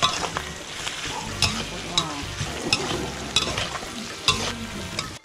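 Pieces of duck skin frying in hot oil in a wok, with a steady sizzle as they are fried until crisp. A metal spatula stirs the skin and knocks against the wok with a sharp clink about once a second.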